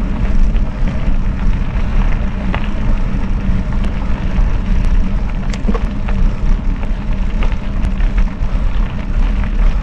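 Mountain bike riding onto a gravel track: a steady low rumble of tyres and riding noise, with a few light clicks and rattles.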